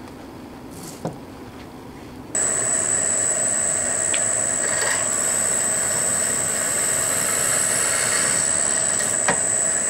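Drill press running and drilling a hole through a cast aluminum spanner wrench, a steady sound with a high whine that starts abruptly about two seconds in.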